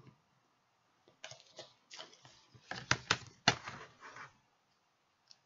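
A small paper card or booklet handled by hand: a string of short rustles and sharp clicks over about three seconds, loudest a little past the middle.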